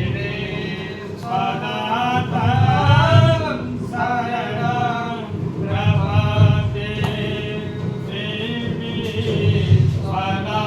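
Male voices singing a Hindu devotional hymn in Sanskrit, in sung phrases a couple of seconds long, over musical accompaniment.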